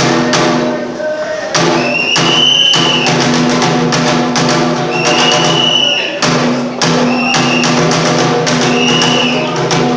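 Bitchū kagura accompaniment: repeated drum strikes over sustained pitched tones, with a high piping note that swells in and out several times.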